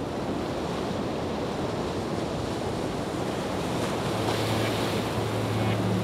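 Ocean surf breaking and washing in, a steady rushing of water and foam. A low steady hum comes in about two-thirds of the way through.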